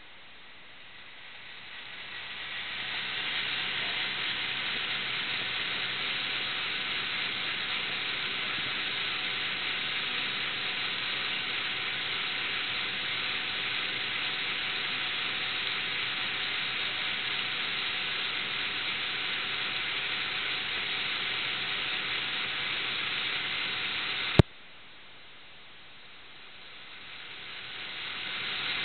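Steady hiss of recording noise, swelling up over the first few seconds. About 24 seconds in there is a sharp click, the hiss drops away, then it swells back up near the end.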